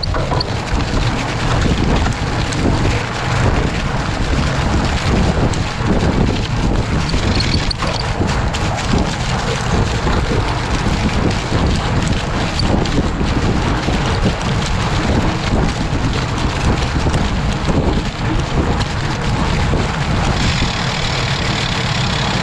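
Steady running of the vehicle towing a narrow trail groomer over snow, its engine noise mixed with wind buffeting the microphone. A brighter hiss joins about twenty seconds in.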